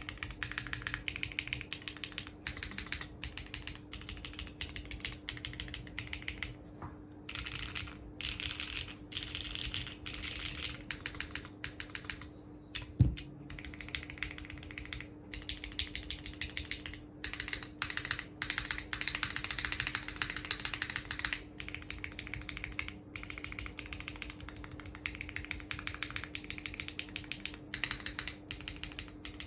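Fast typing on a SINGAKBD Kohaku R2 custom keyboard with stock HMX Xinhai switches, GMK Nord keycaps and no foam: a dense run of key clacks that includes the modifier keys. The keys are mounted on an ABS plate at first and on a polypropylene plate from about twelve seconds in. A single loud thump about thirteen seconds in stands above the typing.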